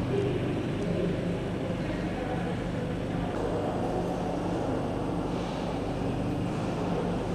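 Steady low machinery hum with an even background haze, from the running demonstration model of a crankless cylindrical-cam marine steam engine.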